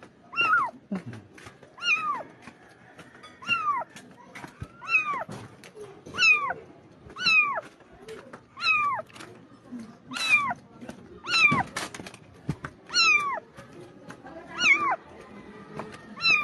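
A young kitten meowing over and over: high cries that fall in pitch, about one every second and a half, with scattered light clicks in between.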